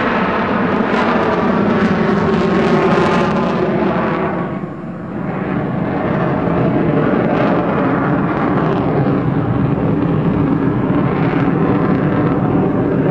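Jet noise from an F-22 Raptor's twin Pratt & Whitney F119 turbofans as the fighter manoeuvres overhead. The noise is loud and steady, dips and loses its hiss about four to five seconds in, then builds again.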